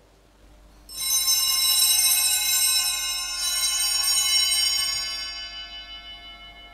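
Small altar bells rung at the elevation of the host during the consecration. They start about a second in, ring on with a bright shimmer, then fade out over the last couple of seconds.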